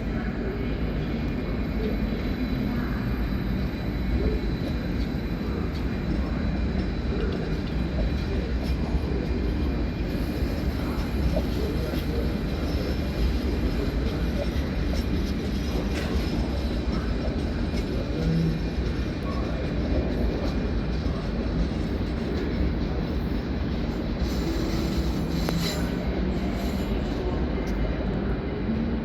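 A rail vehicle running on track: a steady, continuous rumble with faint high wheel squeal and occasional clicks.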